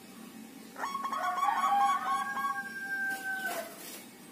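Zebra dove (perkutut) singing. A quick run of staccato cooing notes starts about a second in and draws out into longer held notes, stopping after about three and a half seconds.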